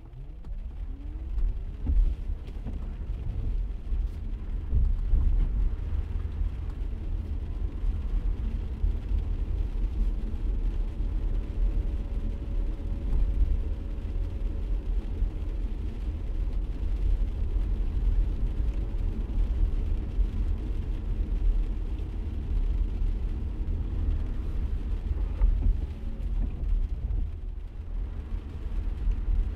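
Car cabin noise: the engine note rises as the car pulls away from a stop, then settles into a steady low rumble of engine and tyres on a wet road while cruising.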